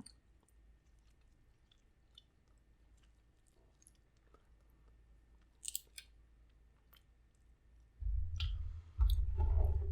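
A person chewing food close to the microphone: faint, scattered wet mouth clicks, then a couple of sharper crackles about six seconds in. A low rumble starts about two seconds before the end.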